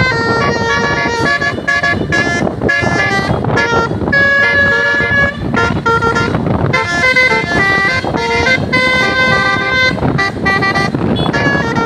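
An Indonesian bus's telolet basuri multi-tone horn playing a melody of held and quickly changing notes over a steady low rumble.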